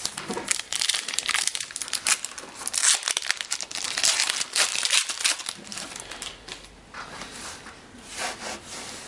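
Crinkling and crackling of a foil trading-card pack wrapper being handled and torn open, busy for about the first five seconds and then settling to quieter rustling.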